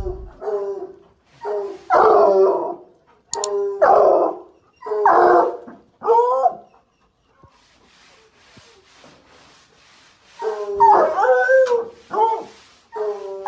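American Foxhounds baying: a run of loud, pitched howling calls, then a quieter gap of about three seconds in the middle, then another run of calls near the end.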